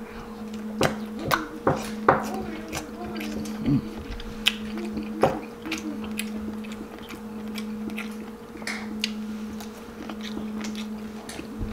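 Close-up eating sounds: chewing of sausage and seafood with many short wet mouth clicks and smacks. A few murmured voice sounds come in the first half, over a steady low hum.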